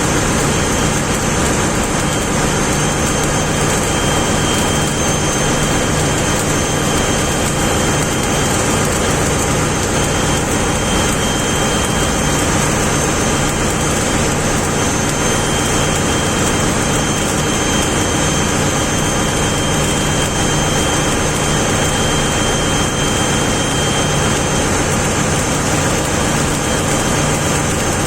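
Steady, loud machinery noise with a constant low hum and a faint high-pitched whine, unchanging throughout.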